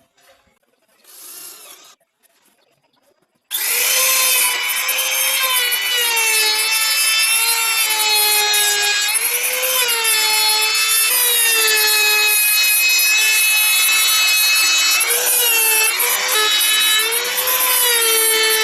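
A handheld trim router switches on about three and a half seconds in and runs with a loud high-pitched motor whine. Its pitch sags and recovers several times as the bit is loaded cutting wood.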